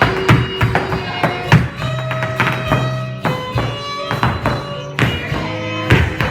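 Irish step-dance music with held, pipe-like melody notes over rapid, sharp hard-shoe taps and stomps.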